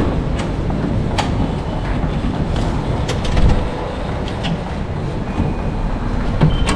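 Metro station background noise: a steady low rumble with scattered light clicks, and a thin steady tone coming in near the end.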